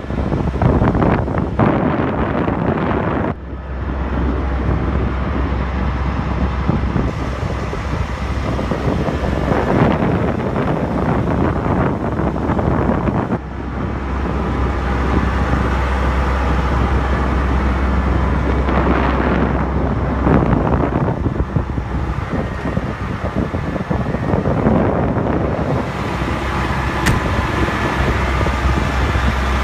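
Wind buffeting the microphone in uneven gusts, with a steady low rumble underneath.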